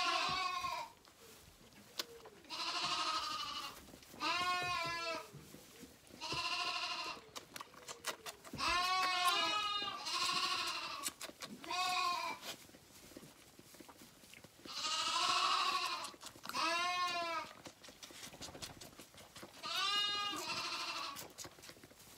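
Zwartbles lambs bleating for their bottles at feeding time: about ten wavering bleats, each under a second long, a second or two apart.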